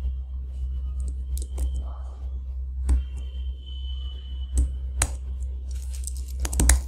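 Keystrokes on a computer keyboard: a few separate key presses, then a quick run of typing near the end, over a steady low hum.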